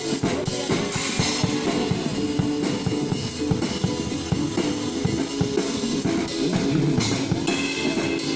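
Mandopop song with a drum kit keeping a steady beat under guitar, an instrumental stretch without clear singing.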